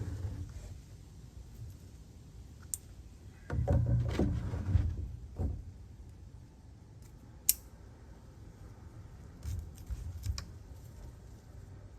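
Handling noises from working on a potato plant grown in a bucket: scattered sharp clicks, and a louder stretch of rustling and bumping between about three and a half and five and a half seconds in.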